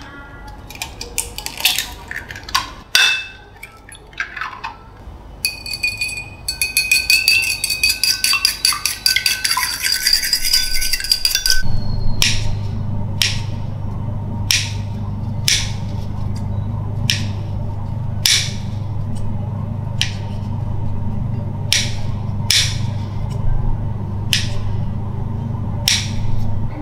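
An egg is cracked into a ceramic bowl and beaten briskly, with quick clinks ringing off the bowl for several seconds. Then kitchen scissors snip the crusts off slices of soft white sandwich bread, a snip every second or so, over a steady low hum.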